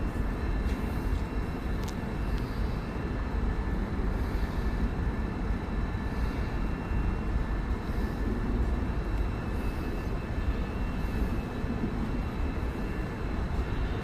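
Steady machinery noise: a continuous low rumble with a faint high whine running through it.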